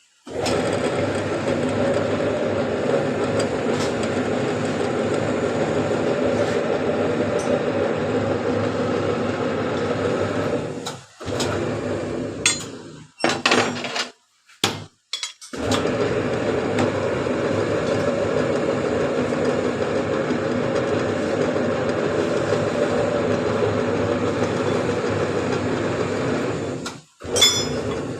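Steady metalworking noise in a steel workshop, stopping about 11 seconds in and starting again a few seconds later, with a few sharp metal clinks and knocks during the pause.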